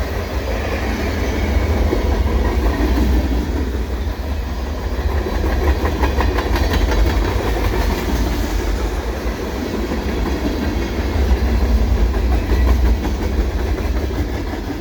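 Freight cars of a CN manifest train rolling past at speed. A steady low rumble runs throughout, with wheels clicking over rail joints, most plainly around the middle.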